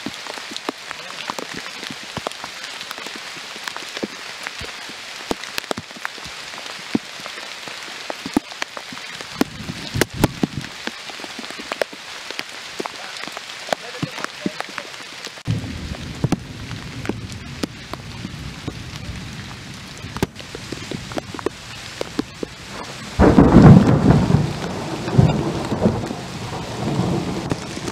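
Heavy rain falling on forest foliage, with many close drops striking. Low thunder rumbles about ten seconds in and again from about halfway, and a loud thunderclap breaks near the end, followed by rolling rumbles.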